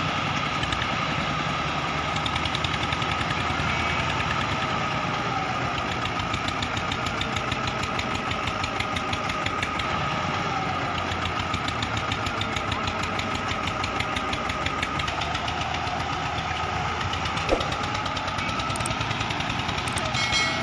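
Tractor engine running steadily with a fast, even chug and a thin steady whine on top.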